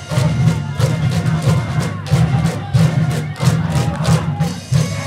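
A high school baseball cheering-section brass band plays a cheer song over a steady, driving drum beat.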